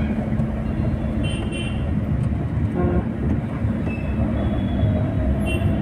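City road traffic: a steady rumble of vehicles, with short horn beeps about a second and a half in and again near the end.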